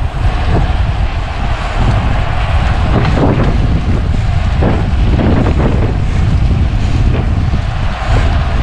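Wind buffeting the microphone on a moving road bicycle: a loud, steady rushing rumble, with a few brief louder gusts around the middle.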